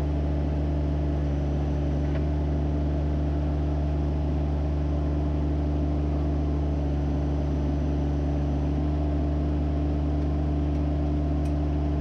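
Kohler gasoline engine of a Hud-Son Oscar 428 bandsaw mill running steadily at a constant speed, with an even hum.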